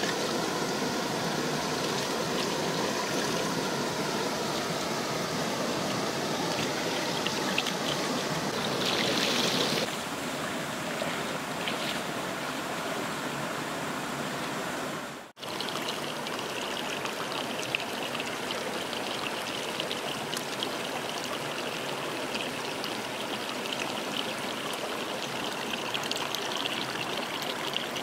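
Shallow rocky stream running steadily, with water splashing as lettuce is rinsed in it by hand through the first third or so. The sound dips out briefly about halfway through, then the stream runs on evenly.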